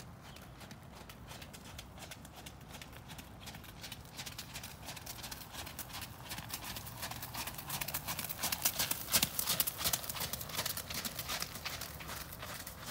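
A ridden horse's hoofbeats on wet arena footing, a rapid steady rhythm that grows louder as the horse comes near, loudest about nine seconds in, then eases off slightly as it moves away.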